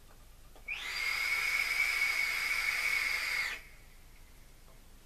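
Air drawn through the half-closed airflow ring of an Aromamizer RDTA during an inhale: a whistling hiss on a steady pitch, starting about a second in and lasting about three seconds.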